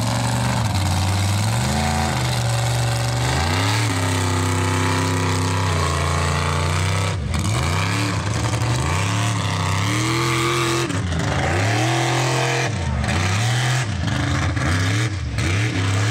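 Big-tired mud truck's engine revving hard again and again, its pitch climbing and dropping every second or so as the throttle is worked on and off.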